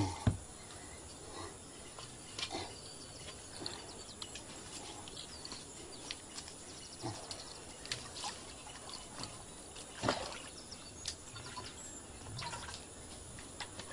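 Water splashing and gurgling as a clay pot is lowered on a rope and dipped into a pond to fill it, with birds chirping in the background.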